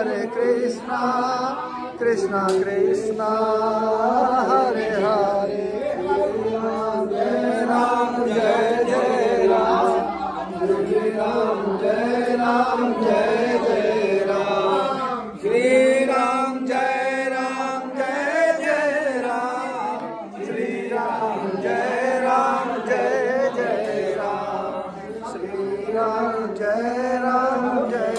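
A group of voices chanting a Hindu devotional hymn in a slow, drawn-out melody, with long held notes that rise and fall.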